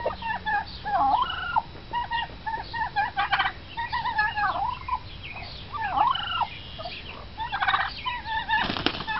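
Turkeys calling: a string of short, wavering yelps and chirps, broken by rapid rattling gobbles from the Bourbon Red tom about three seconds in and again near the end.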